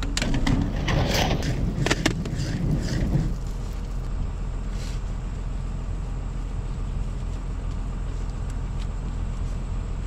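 Black corrugated plastic drainage tile and a plastic coupler being handled, scraping and knocking for about the first three seconds. Under it runs a steady low engine hum.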